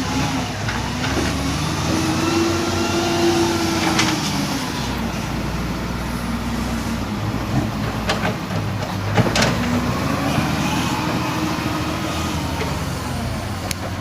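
Bulldozer's diesel engine running under load, its pitch swelling up and falling back a few times as it works, with a few sharp metallic clanks.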